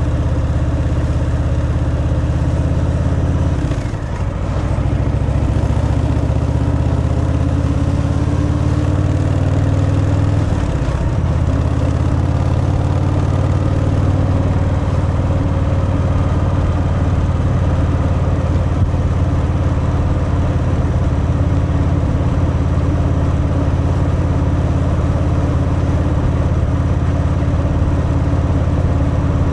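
Harley-Davidson Fat Boy's V-twin engine running through its stock exhaust while riding. The engine note dips and comes back twice, about four and eleven seconds in.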